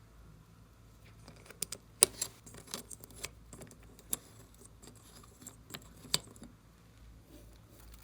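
Slime being worked by hand, giving a run of irregular sharp clicks and small pops, the loudest about two seconds in and again near six seconds.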